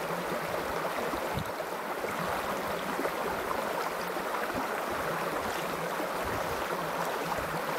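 Shallow creek water rippling and babbling steadily over rocks.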